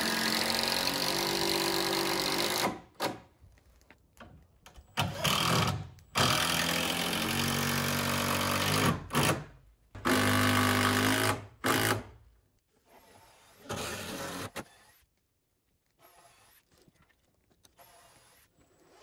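Handheld power drill running into the wooden door frame in four long bursts of one to three seconds each, its motor pitch shifting as it works, followed by a quieter, shorter run near the end.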